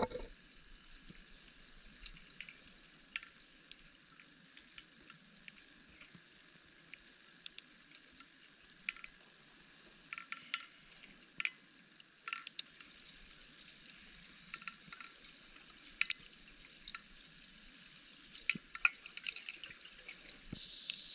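Underwater ambience on a wreck dive: a steady hiss with irregular clicks and crackles throughout, and a brief louder hiss just before the end.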